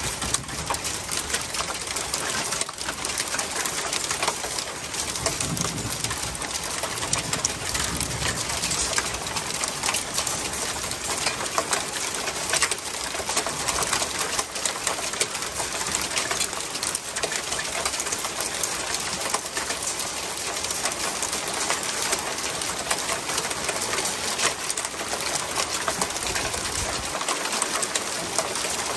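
Hail and rain falling steadily on a wooden deck and patio furniture: a dense, unbroken mass of tiny ticks and hiss.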